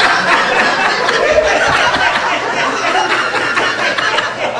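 A crowd laughing and chuckling, with chatter mixed in, echoing in a large hall.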